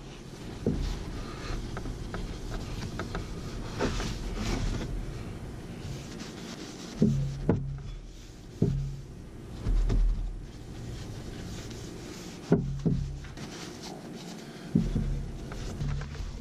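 A cloth rubbing oil into a wooden axe handle and over the axe head, with a string of knocks and thumps as the axe and oil bottle are handled and set down on the wooden workbench.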